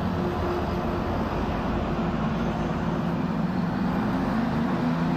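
Airbus A380 airliner flying over, its jet engines heard as a steady low rumble with a few droning tones that wander slightly in pitch.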